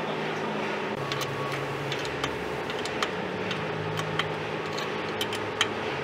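Scattered sharp metal clicks and clinks of hand work on bolts on a band sawmill's steel rail track, over a steady workshop hum.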